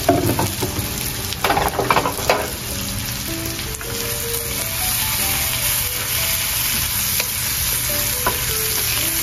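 A sofrito of onion, pepper, sausage and spices sizzling steadily as it fries in a frying pan. It is stirred, with a few sharp scrapes of the spoon against the pan about one and a half to two and a half seconds in.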